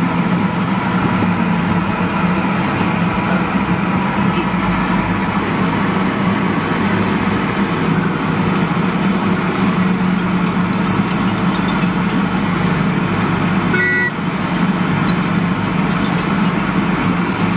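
Steady motor vehicle engine and road noise with a constant low hum, and a short high beep about fourteen seconds in.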